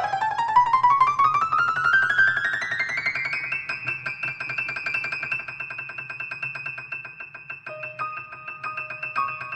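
Piano played fast: a quick run of rapidly repeated notes climbs steadily in pitch for about three seconds, then settles into a high note shaken in a rapid trill, with lower notes coming in near the end.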